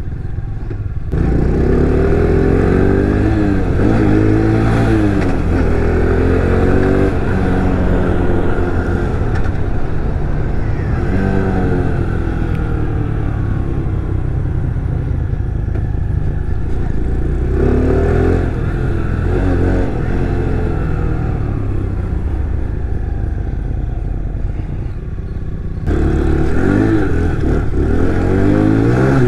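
A 125cc Honda Grom-clone motorcycle engine heard from the rider's seat under way. It revs up and drops back at each gear change several times, with steadier cruising stretches in between, and revs up again near the end.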